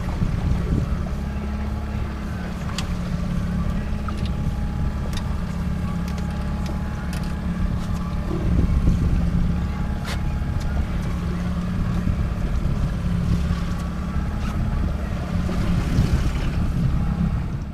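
A fishing boat's engine running steadily, a constant low hum, with wind on the microphone and a few light clicks.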